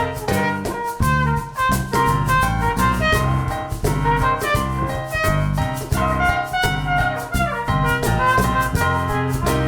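Instrumental break in an upbeat, jazzy show tune: a band with drum kit keeping a steady beat under melody lines that sound like horns or saxophone.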